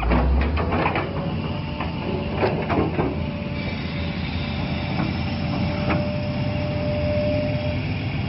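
Excavator's diesel engine running steadily, with metallic clanks and knocks from the machine and a thin steady whine through the middle.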